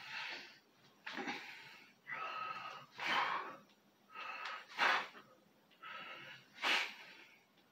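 A man breathing hard from the exertion of shadowboxing. A wheezy drawn-in breath is followed by a short, sharp exhale, about once a second.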